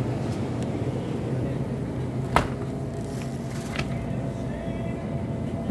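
Supermarket background: a steady low hum with one sharp knock about two and a half seconds in and a few faint ticks.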